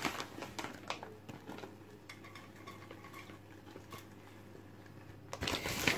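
Metal wire whisk clinking and scraping in a nonstick saucepan while thickening cheese sauce is stirred: a few sharp clicks in the first second, then faint stirring, and a louder rustling scrape near the end.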